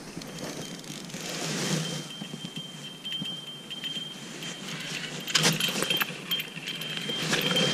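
Small bite-alarm bells on a fishing rod jingling as the rod is handled and lifted from its ground holder with a fish on, over the rustle of heavy winter clothing; a short clatter of knocks comes about five and a half seconds in.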